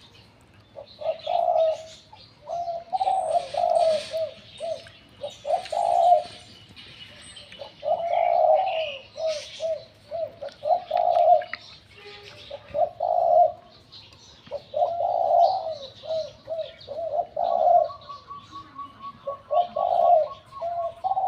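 Spotted dove cooing in the three-note '3 kuk' style prized in Thai decoy doves, phrase after phrase of low coos about every two seconds. Faint chirping of small birds sits above.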